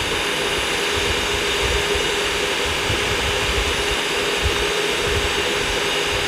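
Electric stand mixer running steadily, its twin beaters whipping egg whites in a stainless steel bowl as egg yolks are beaten in. An even whir with a faint constant hum.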